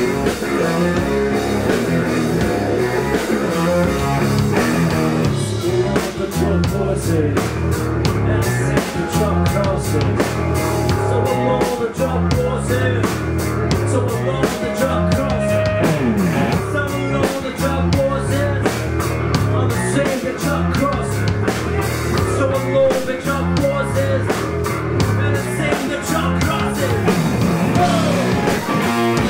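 Rock band playing live: electric guitars, bass guitar and drum kit. About six seconds in, the drums add a steady run of cymbal hits.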